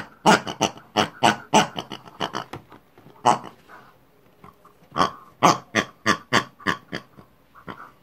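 People imitating pigs: short pig-like grunts and snorts in quick runs, about three a second, with a pause of about a second and a half in the middle.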